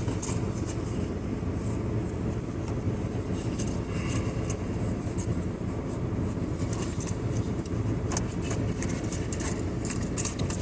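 Steady low rumble of a parked car idling with its air conditioning running, heard from inside the cabin, with a few light clicks scattered through it.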